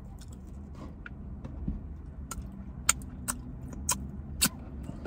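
Several short sharp lip smacks as food is licked off the fingers, over a steady low hum in a car's cabin.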